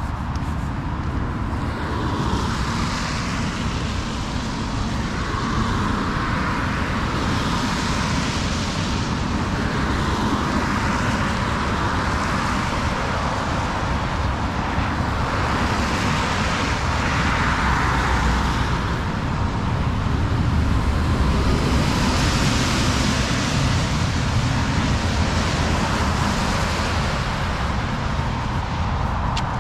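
Road traffic: cars pass one after another, about every four to five seconds, each with a tyre hiss that swells and fades, over a steady low rumble of traffic.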